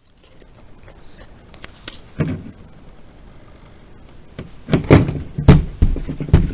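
Handling noise from a Rubik's Cube and its sticker sheet being worked on: scattered small clicks, a knock about two seconds in, then a cluster of loud dull thumps near the end.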